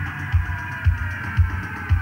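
Background electronic music with a steady low beat about twice a second, over sustained high tones slowly falling in pitch.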